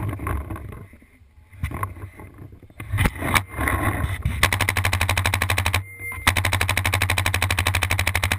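Paintball marker firing rapid, evenly spaced strings of shots: a string of about a second and a half, a short break, then another of about two seconds. A few single sharp cracks come before the strings.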